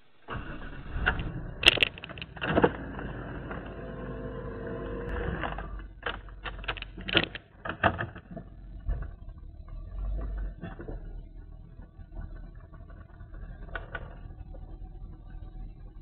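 A 1996 Chevy Caprice's V8 running at idle, heard from inside the cabin with the car at a standstill, as a steady low rumble. Several sharp knocks and clunks break in, the loudest about two seconds in and another cluster about seven seconds in.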